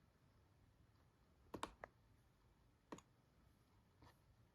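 A few faint, scattered computer mouse clicks over near silence, two close together about a second and a half in, then single ones near three seconds and near the end.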